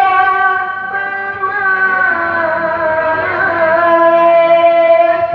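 A single voice chanting melodic Quran recitation (tilawah), holding long notes with small ornamental turns. The pitch steps to a new note about two seconds in.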